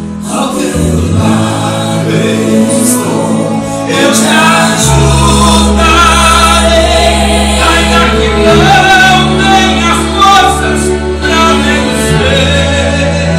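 Gospel song with a lead singer and backing choir over sustained bass notes; the music grows fuller about five seconds in.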